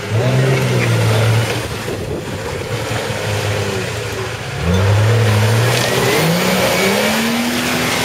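Nissan Patrol GR's engine revving hard as it spins its wheels in deep mud, trying to push through a bog. The revs jump sharply about halfway through and climb again near the end.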